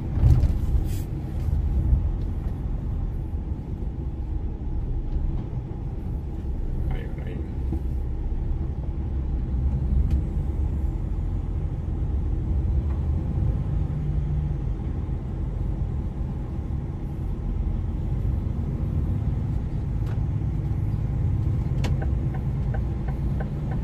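Heavy truck driving, heard from inside the cab: a steady low drone of the diesel engine and road noise, with a few brief clicks, one at the start and one near the end.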